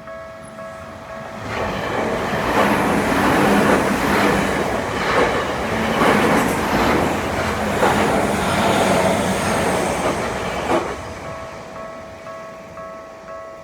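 A Tokyu Toyoko Line electric train passes over a level crossing. Its wheels clack in a steady rhythm over the rail joints for about nine seconds, then the sound falls away. Japanese level-crossing warning bells keep ringing through the pass, clearly heard before the train arrives and again once it has gone.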